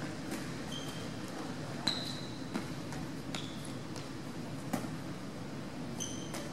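Sneakers squeaking briefly on a hardwood gym floor several times, with a few sharp slaps of a volleyball being tossed and set, over a steady low hum.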